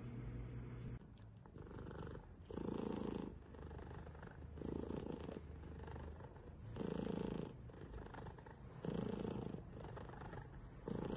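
Domestic cat purring close up, the purr swelling louder about every two seconds.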